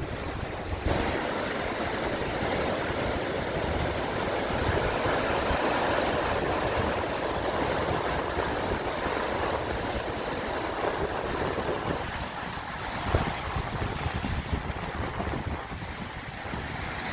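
Sea surf washing steadily onto the shore, swelling and easing, with wind buffeting the microphone.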